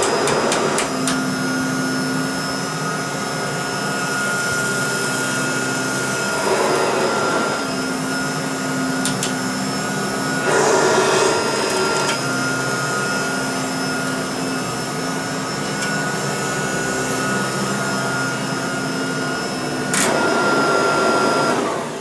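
Kirby Tradition 3CB upright vacuum cleaner running with its carpet brush roll, pushed over carpet with a steady whine. Twice it turns rougher and louder for a second or so. Near the end it is switched off and the whine dies away.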